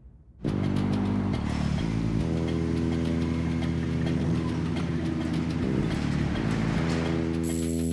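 A motor vehicle's engine running steadily, its pitch stepping up and down a few times, starting abruptly about half a second in.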